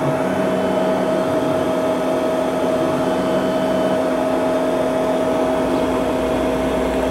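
Laser cutting machine running a cut: a steady machine hum, with a lower tone that comes and goes twice in the first few seconds as the head moves.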